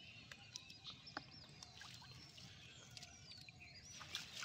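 Near-silent outdoor ambience: faint high bird chirps and a few scattered small clicks over a low, steady hum.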